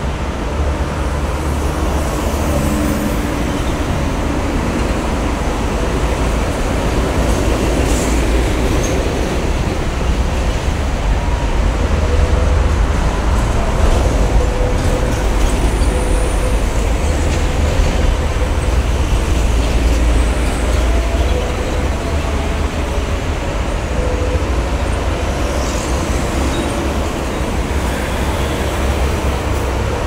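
Heavy highway traffic: diesel trucks, tankers and buses passing in a steady stream, their engines and tyres making a continuous deep rumble that swells a little around the middle.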